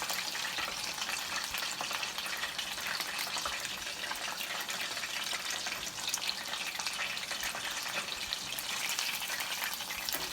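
Battered chicken lollipops deep-frying in hot oil, a steady sizzle full of fine crackling pops as the pieces finish cooking crisp.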